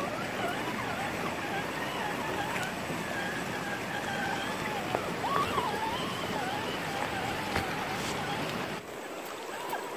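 Electric motor and gear whine of a 1:10 scale JK Rock Cruiser RC rock crawler, rising and falling in pitch as the throttle changes while it climbs over river rocks, over a steady rush of flowing river water. The low part of the water noise drops away near the end.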